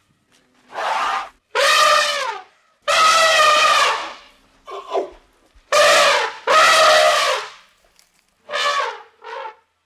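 Elephants trumpeting: about eight loud calls with a wavering pitch, each half a second to a second long, most of them in close pairs. The last two are shorter and quieter.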